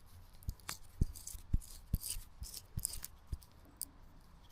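Bearing and spacer being worked by hand, giving about eight light, irregular clicks and rattles over a few seconds. This shows how the bearing sits with its spacer removed.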